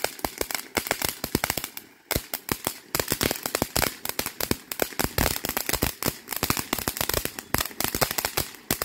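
Fireworks going off in a rapid, irregular string of sharp cracks and bangs, several a second, with a brief lull about two seconds in.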